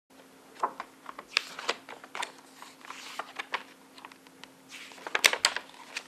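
Paper booklet pages being handled and turned: irregular rustles and sharp taps, with a denser cluster of crisp clicks about five seconds in. A faint steady hum runs underneath.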